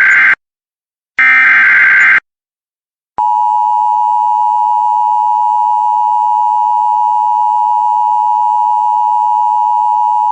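Emergency Alert System signal: the last two bursts of the SAME digital header, short buzzing data bursts about a second long, followed about three seconds in by the steady electronic attention tone that precedes a warning message.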